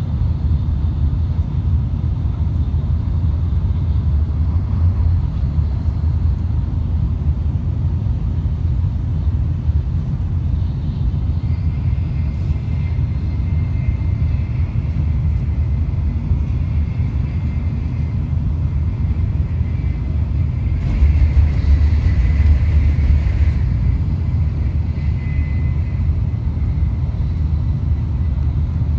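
Shinkansen bullet train heard from inside the passenger cabin while it runs at high speed: a steady, heavy rumble. A faint high whine joins about halfway through, and the rumble swells briefly about three-quarters of the way through.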